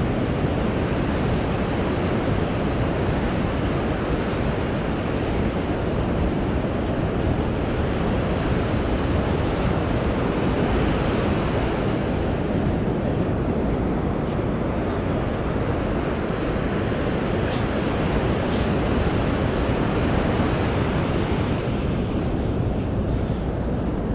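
Ocean surf washing up on a sandy beach, a steady rush with no breaks, mixed with wind buffeting the microphone.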